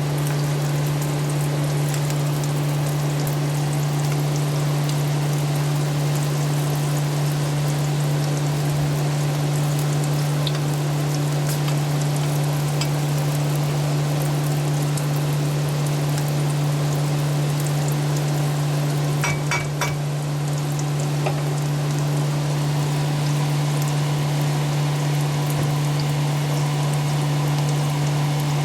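Silkworm pupae frying in hot fat in a frying pan: a steady sizzle with scattered small crackles and a short cluster of clicks about two-thirds of the way through, over a steady low hum.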